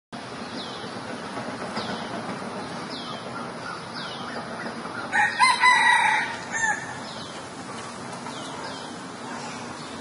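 A junglefowl rooster crows once, a call lasting about a second and a half a little past the middle. Behind it is a steady outdoor hiss, with a short high falling chirp repeating about once a second.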